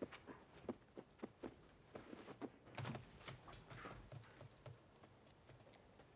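Faint, irregular small clicks and rustles in a quiet room.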